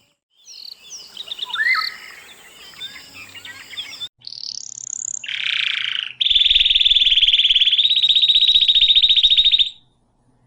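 Wild birds calling: several birds chirp and whistle together, then after a sudden break comes a short swept call, a harsh burst, and a loud, very fast buzzing trill about three and a half seconds long that stops abruptly.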